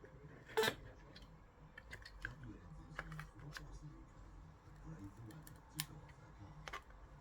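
Small clicks and taps of hands and tools working on the casing of a Harman Kardon Esquire Mini portable speaker during disassembly, with a sharp click about half a second in and two more near the end.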